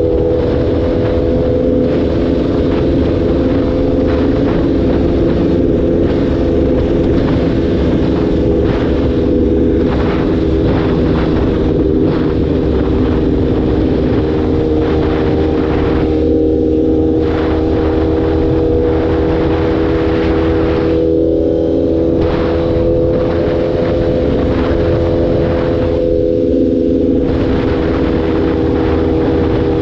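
On-board sound of a motorcycle engine running at a steady cruising speed, its pitch holding constant. Wind rushes over the microphone and eases off briefly three times.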